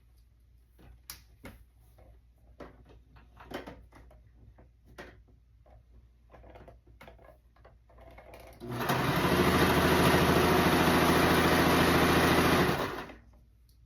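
Small clicks and handling sounds, then an electric sewing machine run at speed for about four seconds, a steady fast needle clatter that starts about two-thirds of the way in and stops suddenly.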